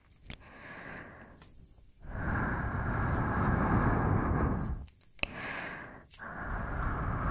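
Slow, heavy breaths close to the microphone: a soft one, then a long loud breath from about two seconds in, a short one after a small click, and another long one near the end.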